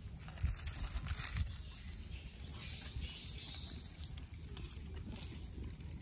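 Dry leaf litter rustling and crackling with small clicks as a baby macaque forages on the ground, louder in the middle, over a steady low rumble on the microphone.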